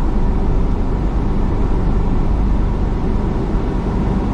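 Car running slowly while parking: a steady low rumble of engine and road noise inside the cabin.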